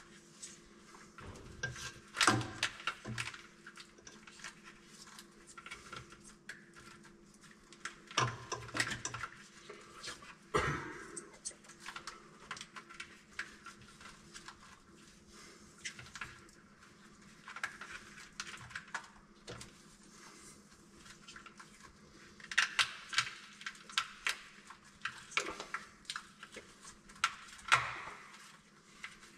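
Hands working on wiring and plastic connectors at a pickup's rear axle: scattered small clicks, rattles and rustles that come in clusters, with a quieter stretch in the middle, over a faint steady hum.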